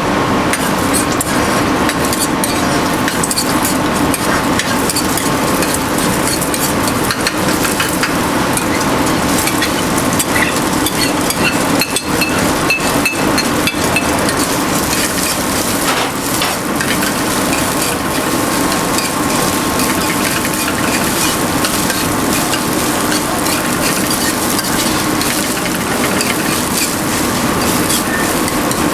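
Eggs and rice for fried rice stir-fried in a hot wok: food sizzling in oil, with the ladle scraping and clacking against the wok many times, over a steady hum.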